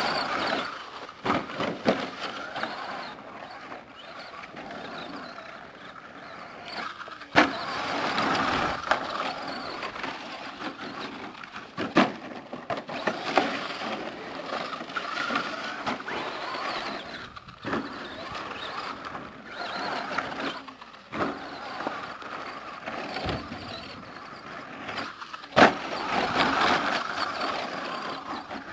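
Team Associated SC10 short course RC truck driving on a dirt track, its brushed Kyosho Le Mans 240ST electric motor whining up and down with the throttle. Three sharp thumps from the truck landing hard.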